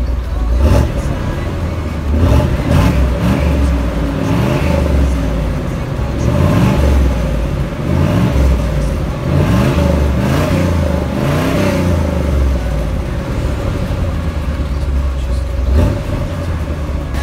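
1977 Corvette C3's L82 350 small-block V8 heard at the exhaust, running through the original mufflers with the catalytic converter removed. It idles and is revved again and again in short blips, the pitch rising and falling each time.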